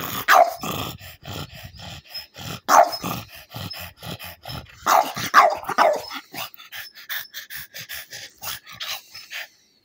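A dog barking in short bursts: one near the start, one about three seconds in, and three in quick succession around five to six seconds, with quick panting in between.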